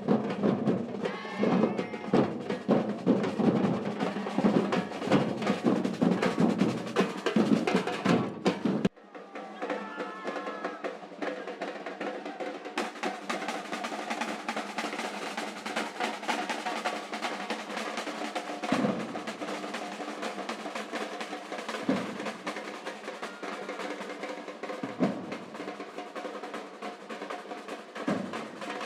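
Samba percussion ensemble playing, with drums and snare rolls. About nine seconds in the sound cuts abruptly to a thinner mix without the deep drums, though the drumming goes on.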